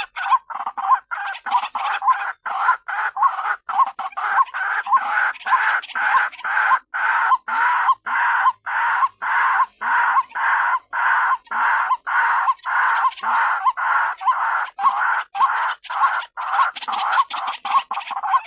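White-breasted waterhen calling: a harsh, croaking note repeated about two to three times a second without a break. It is the female's call, used as a lure to draw other waterhens in.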